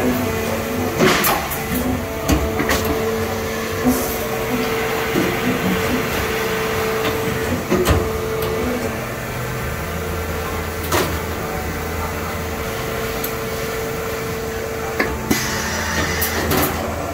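Salvagnini P4 CNC panel bender and its sheet-handling line running a test cycle: a steady machine hum with sharp metallic knocks every few seconds. The hum stops about fifteen seconds in.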